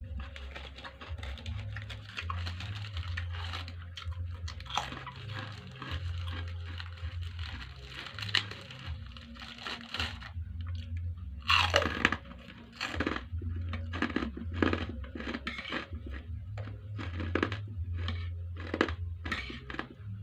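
Close-up eating sounds: crisp, crunchy bites and chewing, dozens of sharp crunches, the loudest about twelve seconds in, over a steady low hum.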